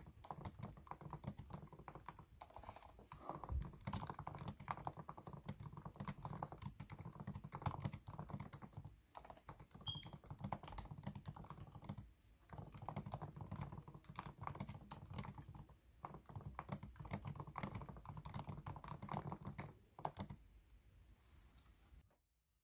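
Rapid typing on a computer keyboard: a dense run of key clicks broken by a few short pauses, stopping shortly before the end.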